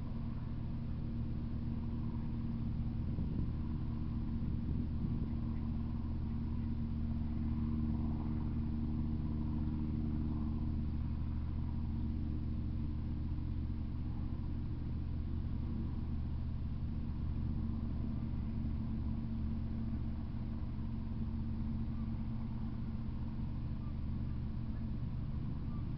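Steady low mechanical hum with faint constant tones in it, swelling slightly midway and then holding level.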